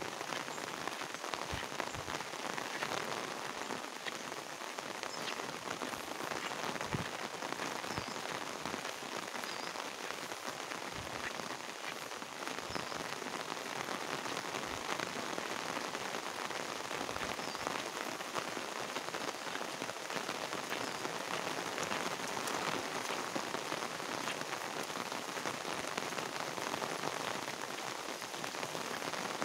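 Steady rain falling: a dense, even hiss of many small drops, with a few soft low thumps now and then.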